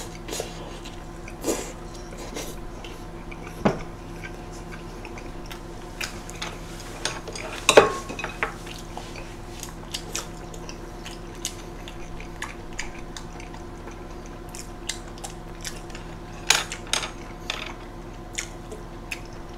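Eating sounds of big burgers: chewing and biting, with scattered sharp clinks and knocks of plates and chopsticks, the loudest about 8 s in, over a faint steady hum.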